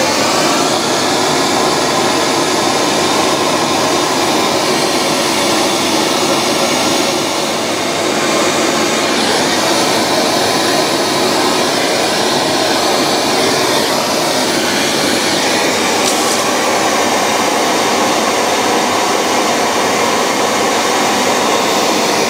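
Gas blowtorch flame burning steadily as it heats a silver steel pawl to temper it to blue.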